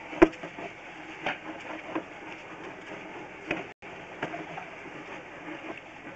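Sewer inspection camera's push cable being fed into the line: a steady mechanical noise with a handful of sharp clicks, the loudest just after the start.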